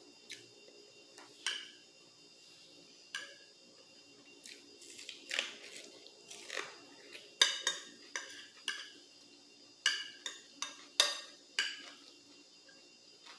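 Metal spoon clinking and scraping against a glass plate while rice is scooped up, with about a dozen sharp clinks spread out and the loudest ones a little past halfway and near the end.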